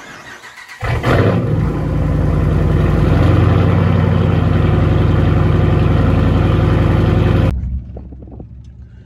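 A motor vehicle engine starts and runs steadily and loudly, then cuts off abruptly about seven and a half seconds in, leaving a faint low rumble.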